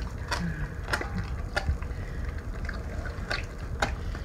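A Weimaraner–Labrador mix dog licking and chewing raw meat in a stainless steel bowl, with a series of short, irregular clicks and smacks.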